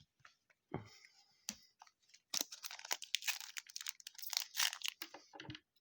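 Trading cards and their packaging being handled: irregular rustling and crinkling with light clicks, denser and louder from about two seconds in.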